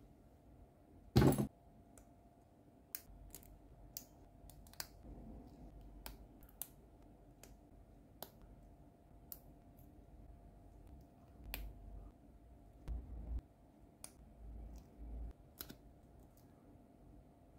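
Small plastic model-kit parts clicking and snapping as they are pressed together by hand, with scattered sharp clicks and soft handling bumps. A louder, brief rustle of handling about a second in.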